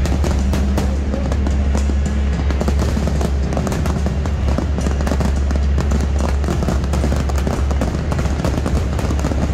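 Fireworks crackling and popping rapidly overhead, many sharp reports in quick succession, over loud music with a steady deep bass.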